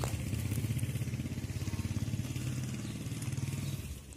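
A small engine running steadily with a low, fast beat, dying away a little before the end.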